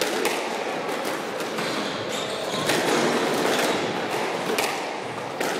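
Squash rally: the ball smacks sharply off rackets and the walls of the court, one hit after another every half-second to second or so, over the steady background noise of the hall.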